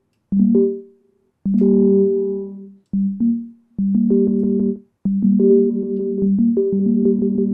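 Arturia MicroFreak synthesizer playing a series of short low phrases through the Eventide H90's Ultra Tap multi-tap delay, the notes breaking off with short gaps between them.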